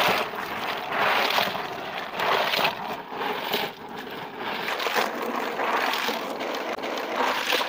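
Walnuts in the shell being stirred and scooped with a wooden board, a rustling, rattling swish that swells roughly once a second with each stroke.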